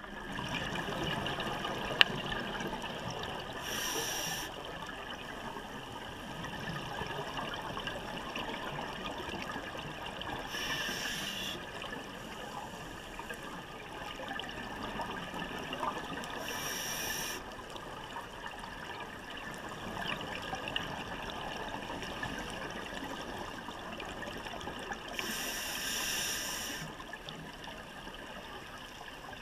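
Scuba diver breathing through a regulator, heard underwater: a steady muffled water hiss, with a rush of exhaled bubbles four times, several seconds apart. One sharp click comes about two seconds in.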